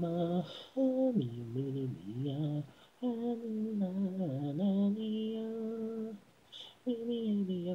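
Unaccompanied singing voice, the isolated a cappella vocal track of a Japanese pop song: sung phrases with held and sliding notes, broken by two short pauses for breath.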